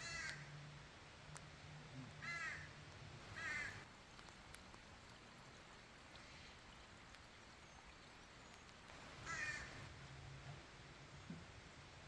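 A bird calling with short cawing calls, four of them spread across the stretch, two close together a couple of seconds in and one more about nine seconds in, over a faint low hum.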